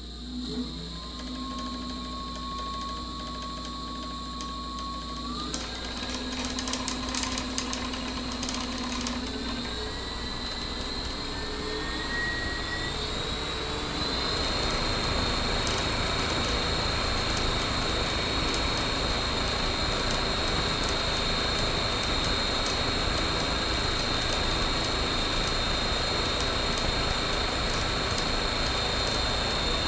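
Hacker A60-16L brushless electric motor spinning a six-blade homemade propeller, throttled up in steps: its whine climbs in pitch over the first dozen seconds, then from about 14 seconds on it holds a steady high whine over a loud rush of propeller air. The prop is weighted out of balance with a bolt on one blade to shake and stress the welded motor mount.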